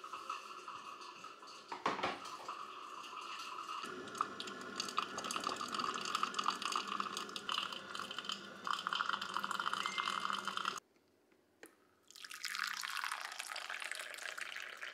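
Liquid trickling and bubbling during coffee-making. It cuts off about 11 seconds in, then resumes as coffee pouring from a spout into a small bowl.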